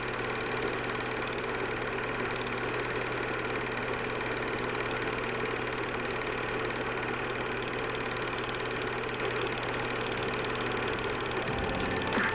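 A steady drone of several held tones, unchanging and without rhythm.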